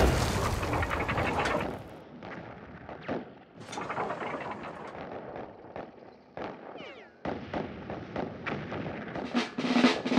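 Battlefield gunfire and artillery, heard as a loud dense sound fading out over the first two seconds and then scattered shots and blasts. There are a few falling whistles about seven seconds in and a louder cluster of shots near the end.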